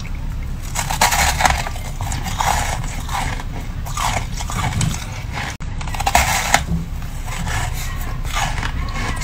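Freezer frost being bitten and chewed, a soft crunching in irregular bursts that breaks off briefly about halfway, over a low steady hum.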